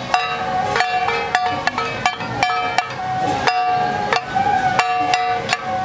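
Traditional temple-procession music accompanying a jiajiang troupe's dance: sharp, hard percussion strikes at an uneven rhythm over a held, steady melody line.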